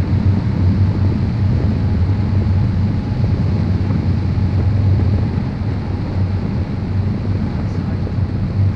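Wind rushing over the microphone of a camera carried on a paraglider in flight, a steady low rumble.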